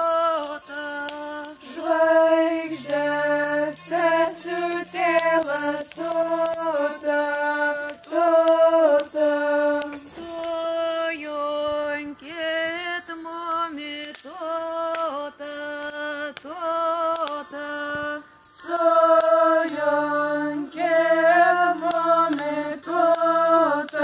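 A woman singing a slow melody in long held notes, with a lower second part joining in twice, a few seconds in and again near the end.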